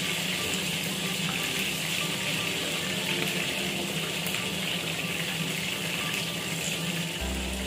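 Steady sizzling hiss of chicken pieces frying and browning in a pan to crisp the skin. A low hum comes in near the end.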